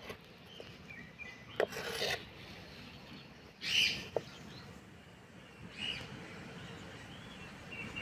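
Knife blade scraping and clicking against an unglazed clay plate while cutting soft gulab jamun: short rasping scrapes about two, four and six seconds in, with a couple of sharp clicks. Birds chirp faintly in the background.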